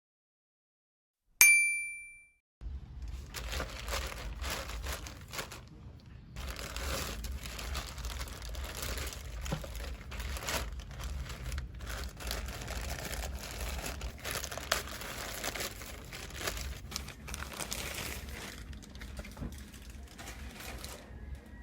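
A single bright chime rings out and fades about a second in. Then comes a long stretch of crinkling and rustling, with small clicks and a low rumble: the speaker's packaging being handled and opened.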